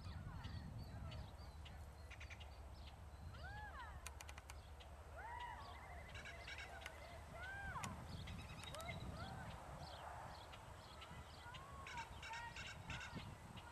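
Farm animals calling: about a dozen short calls, each rising and falling in pitch, scattered through the stretch over a steady low rumble and light clicking.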